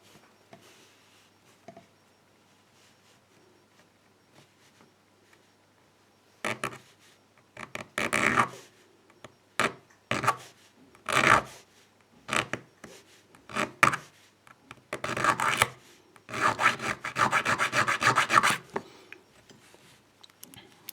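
Round hand file rasping across a key blade, cutting a groove at one pin position. The strokes start about a third of the way in after near quiet, come as a series of short back-and-forth strokes, then run together into steady filing near the end.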